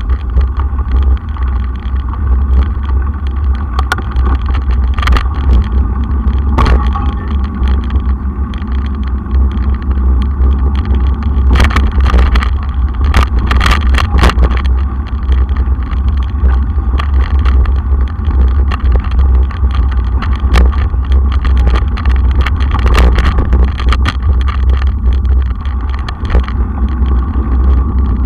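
Wheeler mountain bike ridden over a dirt trail, heard from a camera mounted on its handlebars: a steady heavy low rumble, with scattered sharp rattles and knocks as the bike jolts over bumps, several in quick succession about halfway through.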